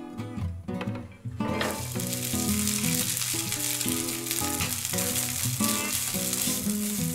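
Cooked rice sizzling in hot garlic-infused oil in a nonstick frying pan, starting suddenly about a second and a half in as the rice goes in, and continuing steadily as it is spread and stirred with a spatula.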